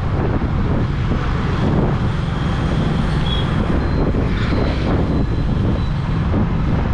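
Steady wind rushing over the microphone together with the engine and road noise of a moving vehicle in town traffic, dense and low-pitched.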